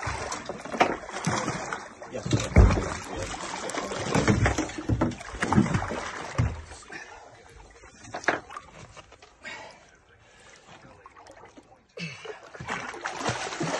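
Water splashing around a small boat, with irregular heavy thumps through the first eight seconds. It dies down about ten seconds in, then picks up again suddenly.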